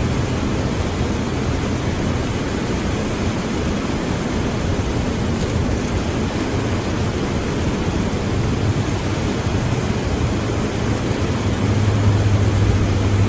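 Steady rushing wind noise on the microphone while riding along, with a low hum that swells near the end.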